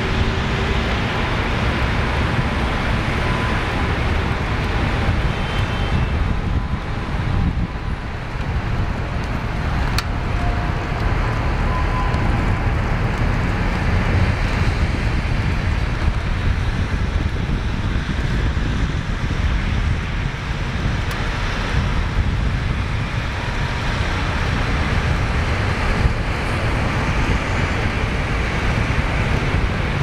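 Steady rumble of city street traffic mixed with wind noise on the microphone.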